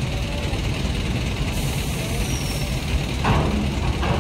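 Heavy diesel truck's engine running steadily at low speed as the loaded truck climbs the vehicle ramp into a ferry, with two short knocks near the end.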